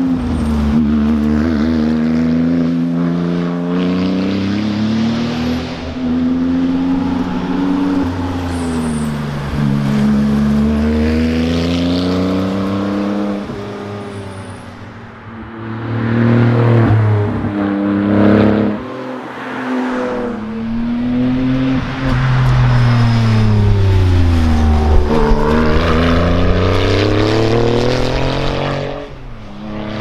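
Porsche 911 Turbo's turbocharged flat-six driven hard on a tarmac rally stage, its engine note climbing under acceleration and dropping again several times as it shifts gear and slows for corners.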